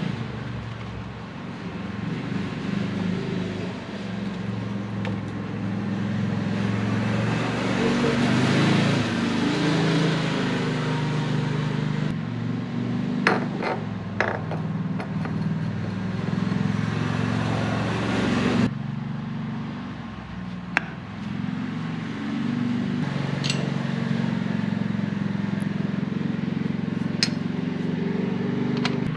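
Steady engine and road drone of a moving vehicle, its pitch shifting now and then, with a few sharp clicks and knocks about halfway through and again later.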